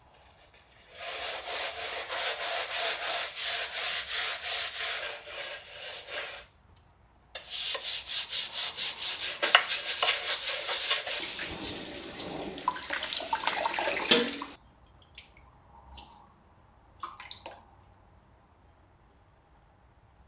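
Scrubbing a metal baking tray coated in a wet paste of silver stone cleaner, vinegar and baking soda: two stretches of quick, rhythmic scouring strokes, first with a steel wool scourer, then with a brush. A few light clicks follow near the end.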